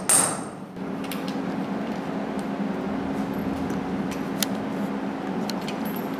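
One last hammer blow on an anchor setting tool, driving an anchor into a concrete ceiling slab, and then the hammering stops. A steady low hum and a few light clicks and taps follow.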